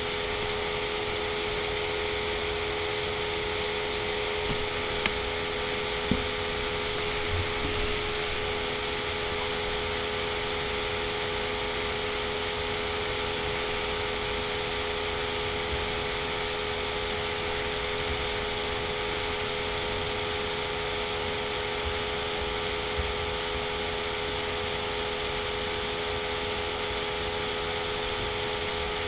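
Steady background hum and hiss, with a few faint clicks in the first several seconds.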